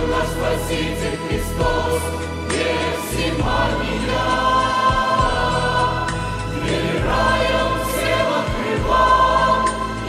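Church choir of women and men singing a slow hymn in long held chords.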